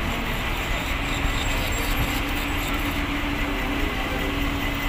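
Heavy diesel tractor-trailer truck running as it hauls a long precast concrete girder at low speed: a steady engine and running noise.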